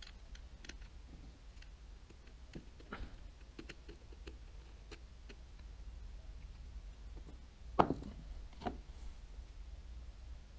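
Scattered light clicks and taps of small baitcasting reel parts and tools being handled on a bench, with two louder knocks about eight seconds in.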